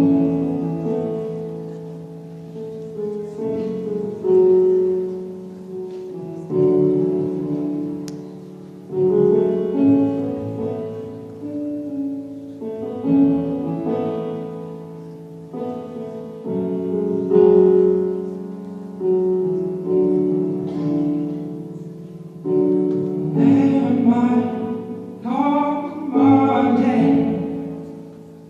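Piano playing slow, ringing chords as the introduction to a ballad, with a singer's voice coming in near the end.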